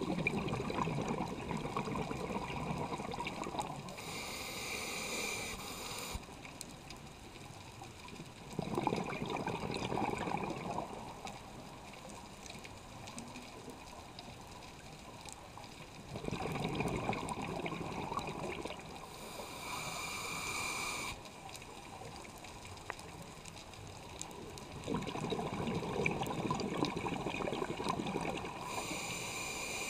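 Scuba diver breathing through a regulator underwater: bubbling exhalations of two to three seconds, about every eight seconds, alternating with short hissing inhalations through the regulator's demand valve.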